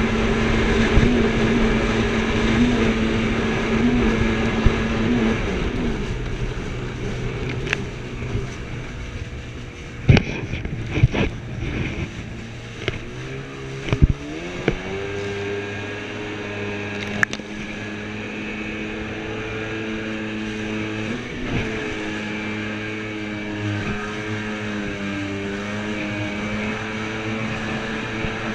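Jet ski engine running at speed. It eases off about five seconds in, rises again around fourteen seconds in and then holds steady. A few sharp thumps come between about ten and seventeen seconds.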